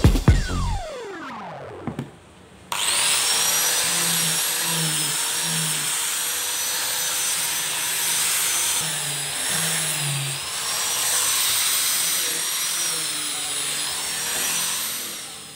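A corded electric power tool running steadily with a high-pitched motor whine, worked along a plywood edge to level it. It starts abruptly a few seconds in, after a short falling electronic intro sweep, and fades out near the end.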